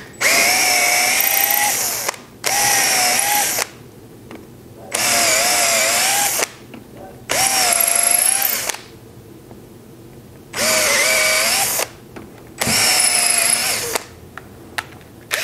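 DeWalt cordless drill pre-drilling pilot holes for mounting screws into plywood, running in six short bursts of one to two seconds each with pauses between, its whine sagging in pitch as the bit bites into the wood.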